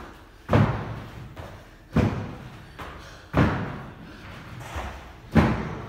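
Feet landing with heavy thuds during repeated box jumps onto a wooden plyo box and back down to the floor. There are four thuds about a second and a half apart, with a lighter knock between the last two.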